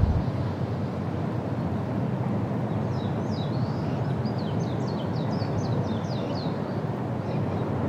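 Steady rush of wind across the microphone. Starting about three seconds in, a small bird sings a quick run of short, high, falling notes for a few seconds.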